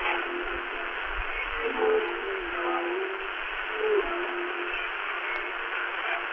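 Shortwave music broadcast from LRA36 Radio Nacional Arcangel San Gabriel, received in upper sideband on 15476 kHz and played through a Tecsun PL-368 portable radio's speaker: a faint tune of held, wavering notes under a steady hiss of static, thin and narrow in sound.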